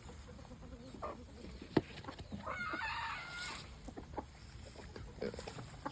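Young cockerel trying out an immature crow, a wavering pitched call of about a second starting about two and a half seconds in, among soft chicken clucking. A few sharp knocks, the loudest a little before two seconds in.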